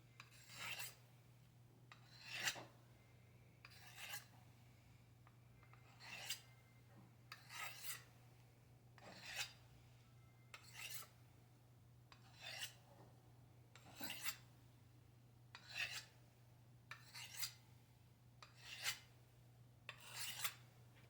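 Knife blade being hand-sharpened: a faint scrape about every one and a half seconds, roughly thirteen strokes in all, each a short rasp of steel across the sharpener. A low steady hum lies under the strokes.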